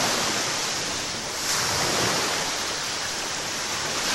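Rough sea surf breaking and washing over shoreline rocks, a steady rush of water that swells slightly about a second and a half in.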